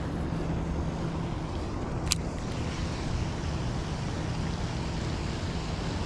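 Wind buffeting the microphone: a steady low rumble, with one sharp click about two seconds in.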